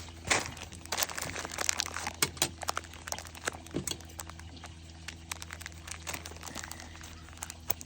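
Small metal jewelry findings clinking and plastic packaging crinkling as bags of supplies are handled, an irregular scatter of light clicks and clinks.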